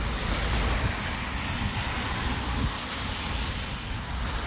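Road traffic passing on a wet street: tyres hissing on the wet asphalt over a low engine rumble.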